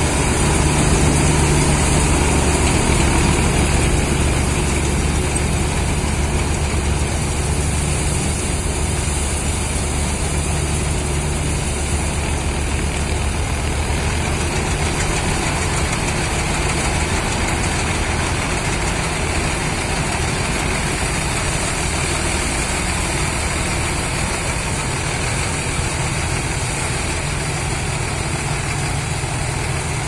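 Diesel engine of a Balkar combine harvester on a 65 hp Swaraj 963 FE tractor, running steadily while it harvests wheat. The sound eases a little after the first few seconds as the machine pulls away.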